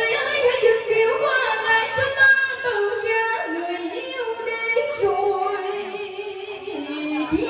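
A woman singing a slow melody over backing music, holding long notes that step down in pitch.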